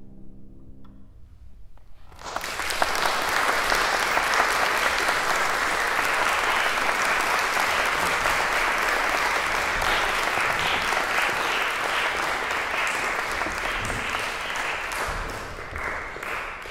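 The last cello-and-piano chord dies away, then after a short hush an audience breaks into applause about two seconds in, steady and then fading near the end.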